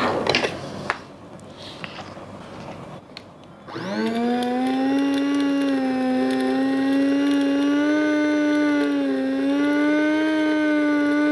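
A few plastic knocks as a small electric blade grinder is handled, then about four seconds in its motor spins up quickly and runs at a steady high whine while grinding bran.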